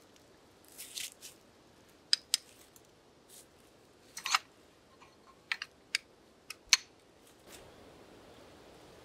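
Ratcheting hand pipe threader cutting threads onto a steel well pipe: a handful of sharp, irregular metallic clicks from the ratchet as the handle is worked, with some softer rustling about a second in.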